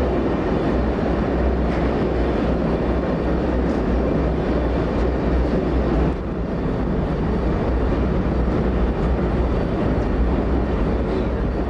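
Steady rumble and drone of a moving passenger train heard on board, wheels running on the rails with a deep engine hum underneath; the level dips slightly and suddenly about halfway through.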